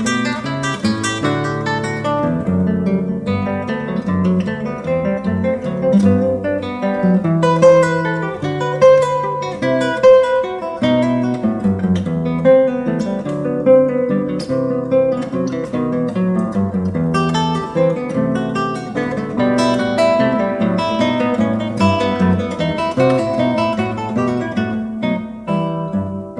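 Solo acoustic guitar music: a steady run of plucked melody notes over moving bass notes.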